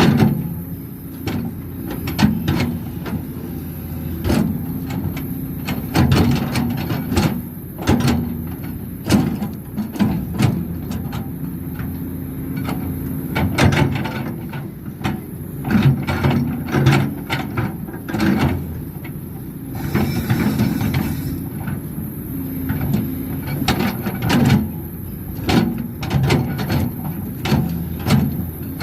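Excavator running under load, its engine humming steadily while frequent irregular knocks and clanks come from the machine at work.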